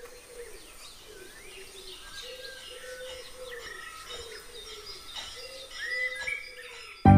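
Birds chirping, with a low call repeated over and over under higher chirps. Loud drum-led music cuts in near the end.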